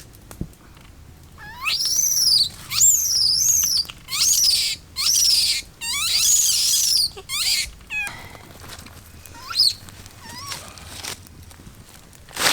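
A bird squawking in a run of loud, harsh calls, each sweeping up in pitch, about six in a row, then a few fainter calls near the end.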